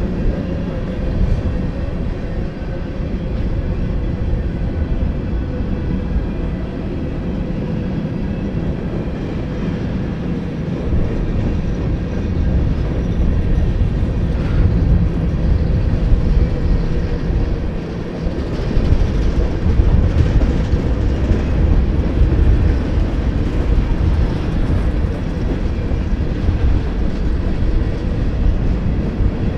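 Union Pacific manifest freight train rolling past, a steady rumble of wheels on rail.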